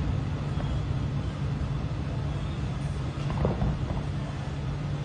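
Steady low rumble of road traffic, with a few faint, sharp fireworks pops a little past the middle.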